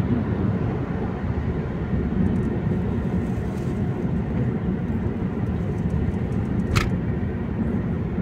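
Steady road and engine noise from inside a moving car at highway speed, heavy in the low end, with one brief sharp click near the end.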